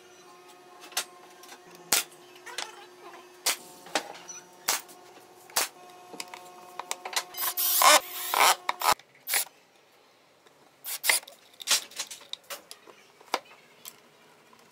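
Wooden boards and hardware knocked and clicked together in handling, one sharp knock after another. About eight seconds in, a cordless drill runs briefly, driving a screw into a brass hinge. A faint steady hum sits under the first nine seconds.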